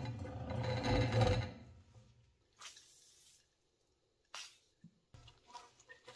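A steady low rumbling noise that fades out about a second and a half in, then short hisses of aerosol penetrating oil sprayed through a straw onto the rusted, stuck centre screw of a cast iron meat slicer. Light metal clicks follow as a screwdriver tip is set in the screw slot.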